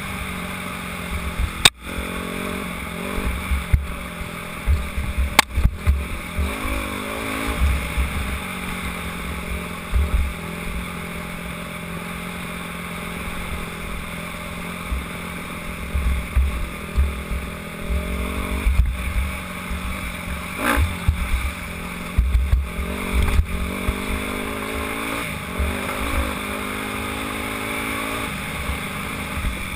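Dirt bike engine being ridden hard, its pitch climbing and dropping again and again as the throttle is worked, with wind buffeting the helmet-mounted microphone. A couple of sharp knocks come in the first few seconds.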